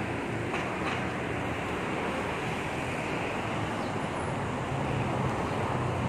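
Street traffic: a steady noise of vehicles driving past, with a low engine hum growing louder in the last second or two as a vehicle passes close.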